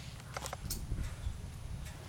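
A few soft footsteps on concrete over a low steady rumble, with light clicks of the camera being carried along.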